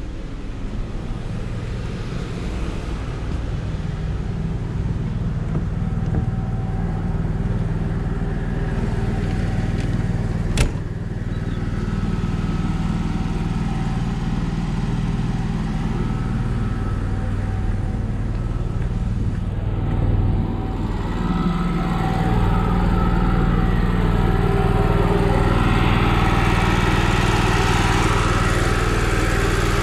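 Onan 5500-watt RV generator running steadily with its newly fitted carburetor, loaded by a running air conditioner, louder in the last several seconds. A single sharp knock comes about ten seconds in.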